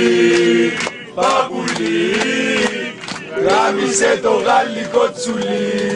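Group of men chanting a football supporters' song together, holding long sung notes.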